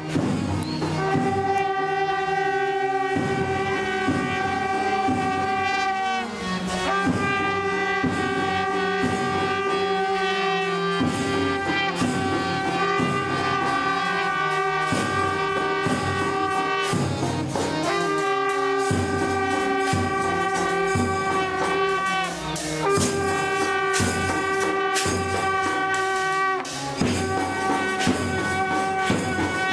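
Brass bugles sounding long held notes, each lasting several seconds before breaking off and starting again, over repeated drum beats.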